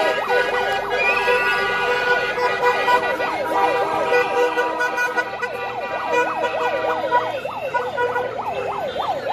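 Car horns blaring from passing cars, with a fast yelping siren sweeping up and down over them, about three sweeps a second.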